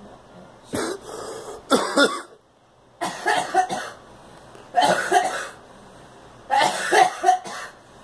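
A girl coughing in repeated bouts, about five in all, each of two or three quick coughs in a row.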